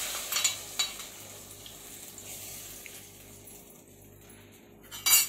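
Hot oil and fried onion tadka sizzling as it hits the dal curry in a pressure cooker, the sizzle dying away over the first second or so, with a couple of light taps of the metal tadka pan on the cooker. A loud metal clank on the pot near the end.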